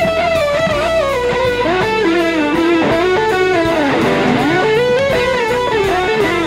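Electric guitar playing a blues-rock lead line with smooth gliding, slide-style notes over a band backing.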